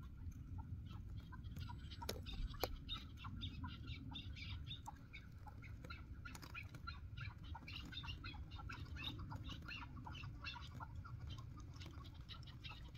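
Chukar partridges calling softly: a quick run of short clucking notes, fairly faint, over a low steady rumble, with two sharp clicks about two seconds in.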